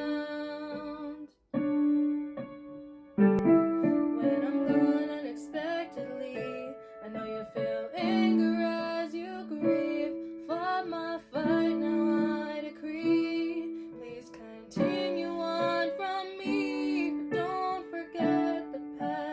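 Piano playing chords with a woman's voice singing over them without clear words, the voice sliding between notes. The sound cuts out for a moment about a second and a half in.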